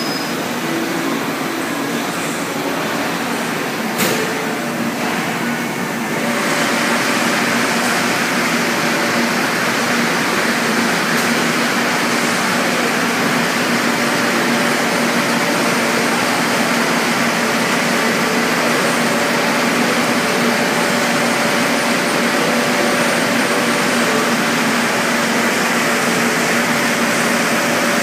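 Steady running noise of a Reed Rico B112 hydraulic two-die thread rolling machine, a constant hum under a broad hiss. There is a single click about four seconds in, and the hiss grows louder about six seconds in.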